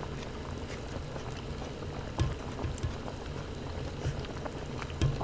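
Broth in a hot pot simmering with a steady bubbling, with a few light clicks of chopsticks.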